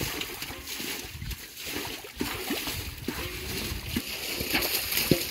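Shallow muddy water splashing and sloshing in short, irregular bursts, from fish thrashing and hands groping through the mud.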